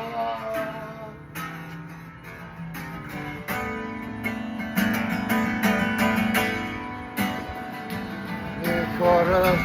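Music: guitar playing a song's instrumental passage, with chords strummed.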